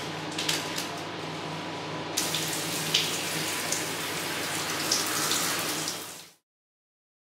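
Shower spray running steadily onto a person and the tiled shower, a dense hiss of falling water with a few sharp splashes. It grows brighter about two seconds in and fades out about six seconds in.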